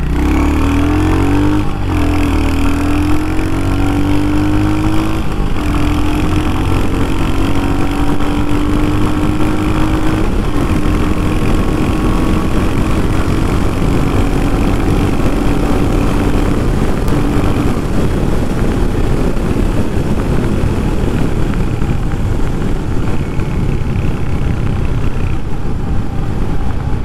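Royal Enfield Hunter 350's single-cylinder engine revving up as the motorcycle pulls away, its pitch rising and stepping in the first couple of seconds, then running steadily under constant wind noise.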